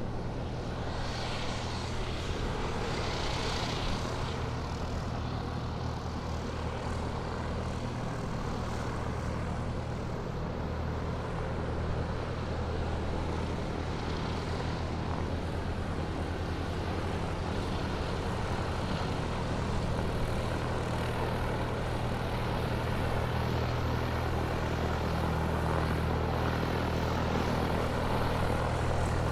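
Airplane engine running while the aircraft taxis: a steady low drone with a hum of deep tones under an even rush, growing slightly louder toward the end.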